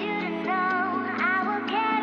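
Background music: a melody line that slides in pitch, over a held bass note and a steady beat.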